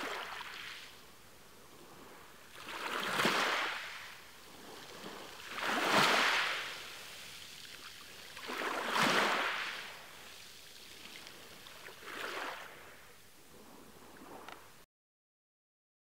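Small waves washing in over a stony shore, each surge of surf swelling and fading about every three seconds. The sound cuts off abruptly shortly before the end.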